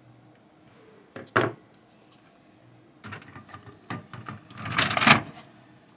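Hard plastic clicks and knocks as an HP 88A toner cartridge is handled and pushed into an HP LaserJet P1108's cartridge bay. One sharp knock comes about a second and a half in, then a run of clicks, with the loudest burst of sliding and knocking about five seconds in.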